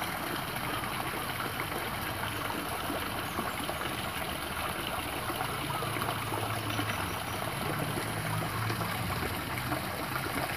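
Steady trickle of water running in a shallow drain, with a low hum joining about halfway through.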